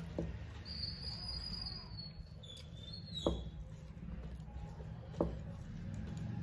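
Rice and curry being mixed and eaten by hand from steel plates: three sharp clicks a couple of seconds apart over a steady low hum, with a thin high tone held for about a second near the start.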